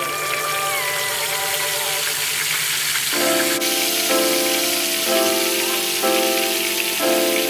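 Marinated milkfish (daing na bangus) frying in hot oil, a steady sizzling hiss. Background music plays over it, with repeated chords about once a second in the second half.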